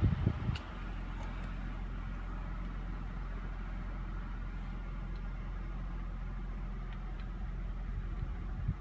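2003 Honda Pilot's 3.5-litre V6 idling, heard from inside the cabin as a steady low hum. A few knocks come in the first half second.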